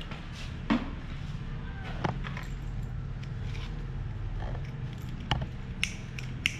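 A bamboo water pipe being handled, with a few sharp knocks and clicks over a low steady hum. A quick run of clicks near the end comes from a lighter being struck at the pipe's bowl.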